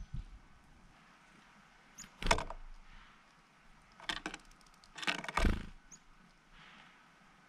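Black-capped chickadee wings fluttering close by as birds fly onto and off the seed tray: three short bursts of wingbeats about two, four and five seconds in.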